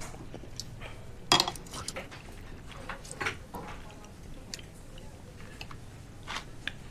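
Metal spoons clinking against bowls and dishes as people eat soup, with a few sharp clinks, the loudest about a second in, over a low steady background.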